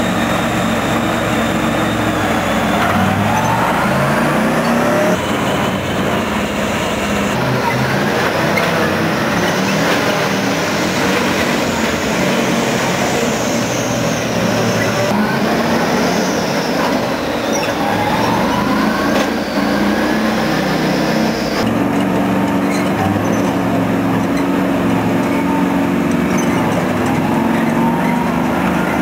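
AFV-55 tracked armoured vehicle driving, its engine running loud and revving up and down under load, with track rattle. The sound shifts abruptly a few times between shots.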